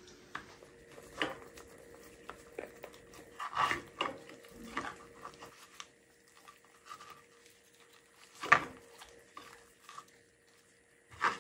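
Gloved hand rubbing dry spice rub into a whole tilapia on a plastic cutting board: scattered soft rubbing and handling sounds with a few sharp knocks, the loudest about eight and a half seconds in and another near the end, over a faint steady hum.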